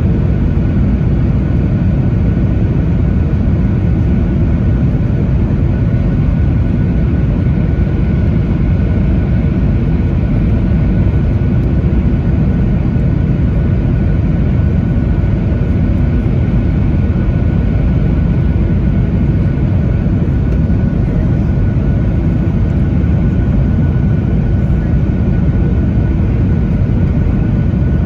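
Cabin noise aboard a Boeing 737-900ER airliner in flight: a loud, steady rumble of its CFM56 jet engines and airflow, with a thin, steady high tone over it.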